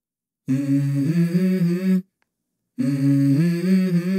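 A low voice humming a melody in two phrases of a few held notes each, stepping in pitch, with a short silence between: the hummed opening of a song.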